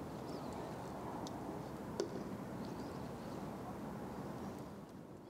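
Steady low outdoor background noise with a few faint high chirps and one sharp click about two seconds in, fading down near the end.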